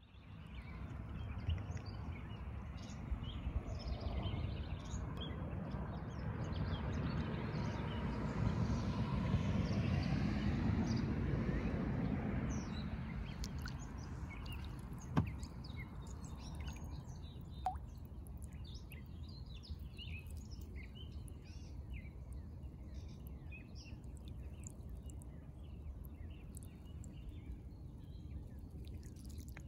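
Small birds chirping and twittering, over a low rushing noise that swells to a peak about ten seconds in and fades away a few seconds later. There is one sharp click midway.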